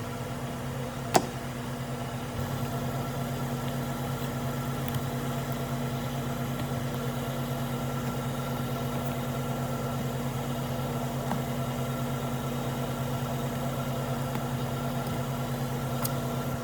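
A steady mechanical hum, like a motor or engine idling, with one sharp click about a second in.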